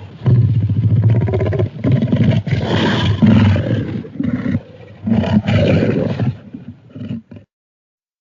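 Tyrannosaurus rex roar sound effect: a run of deep roars, three long ones followed by a few short ones, cutting off suddenly shortly before the end.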